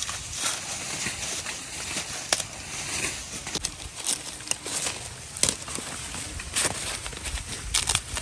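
Dry corn husks crackling and tearing in quick, irregular strips as ears of field corn are husked by hand with a pointed husking peg.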